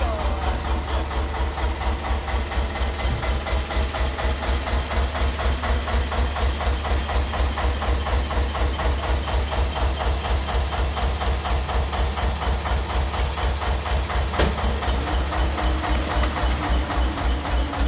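Petter PD2 two-cylinder air-cooled diesel in a historic working narrowboat, running slowly with a steady, even chug.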